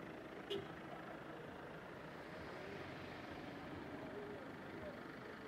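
Faint, steady running noise of a car moving slowly, heard from inside the vehicle, with a short click about half a second in.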